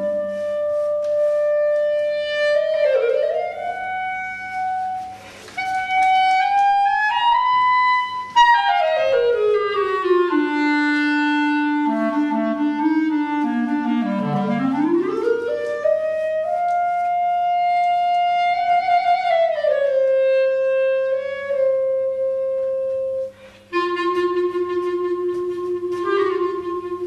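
Solo clarinet improvising slowly: long held notes joined by wide glides up and down in pitch. Near the end there is a short break, then a low held note.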